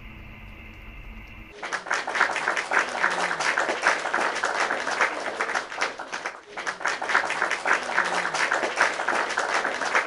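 Canned applause sound effect: a short clip of many hands clapping, cutting in abruptly about a second and a half in and played twice in a row as a loop. Before it, a low steady hum of room tone.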